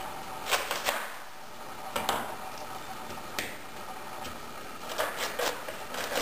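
Kitchen knife cutting through a raw head of cabbage on a cutting board: several sharp, crisp crunches and taps of the blade at uneven intervals, with a quick cluster near the end.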